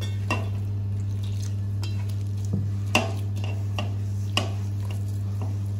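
A hand mixing and kneading besan (gram flour) dough in a steel bowl, with a few sharp clicks of hand against the bowl over a steady low hum.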